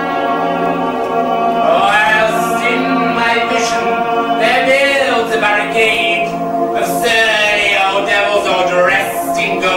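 Music for a stage piece: a sustained held chord, with a singing voice entering about two seconds in and carrying a slow, wavering, gliding line over it.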